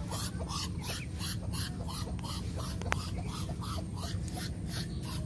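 Muscovy drake hissing in a quick rhythmic series of breathy puffs, about four a second.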